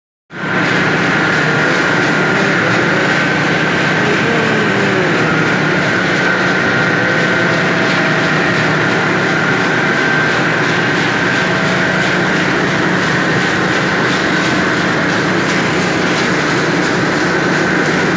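Factory machinery with rollers and gears running steadily: a loud, constant mechanical din with a steady high whine, a low hum and fast, even clatter.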